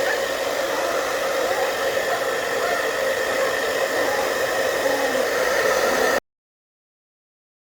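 Handheld hair dryer blowing steadily with a whine in its rush of air, drying a puppy's coat after a bath. About six seconds in the sound cuts off abruptly to dead silence.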